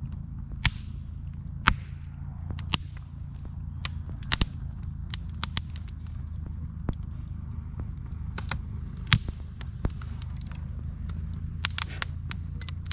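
Steady low engine and road drone, as heard on the road in a vehicle, with irregular sharp clicks and rattles, the loudest about 9 seconds in.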